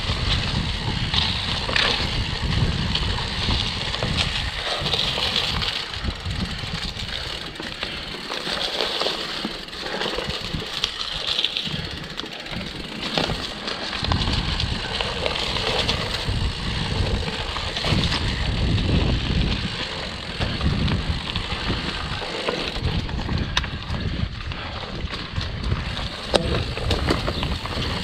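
Mountain bike riding down a dirt forest singletrack: tyres running over dirt and leaf litter, with a steady low rumble that eases for a few seconds in the middle and scattered clicks and rattles from the bike over bumps.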